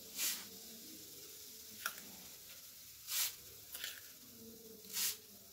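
Poppy seeds poured from a steel spoon into a rolled paper cone: three short rustling pours, one at the start, one past the middle and one near the end. A light click sounds in between.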